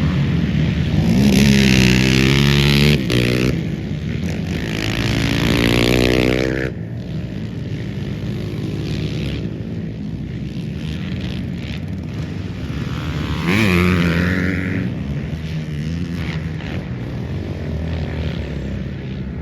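Several racing quads (ATVs) with engines revving and passing, the pitch rising and falling as they go by. The engines are loudest in the first few seconds and again about fourteen seconds in, and quieter in between.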